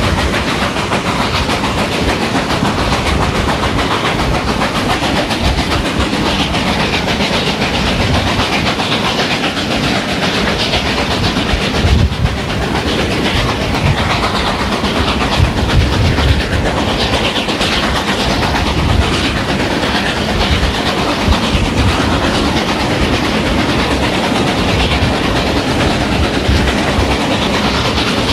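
Steam-hauled excursion train behind Reading 4-8-4 No. 2102 rolling along the track, a steady rumble with wheels clacking over the rail joints.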